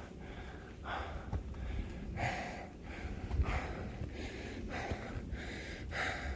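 A man breathing hard, with loud open-mouthed breaths roughly once a second, out of breath from climbing steep trail steps.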